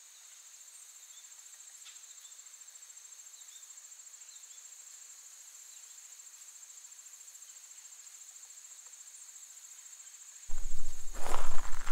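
Faint, steady high-pitched insect trilling with a few faint short chirps. Near the end it gives way to louder footsteps crunching on dirt.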